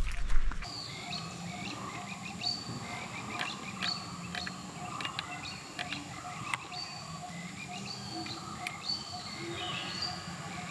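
Forest ambience: several birds calling in short whistled notes, over a steady high insect hum and a soft low call repeating about three times a second. Footsteps sound at the very start.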